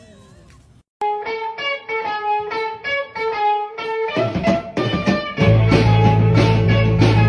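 Background music: a plucked guitar riff starts about a second in after a brief dropout. A fuller band joins around four seconds in, and heavy bass and drums come in about five and a half seconds in.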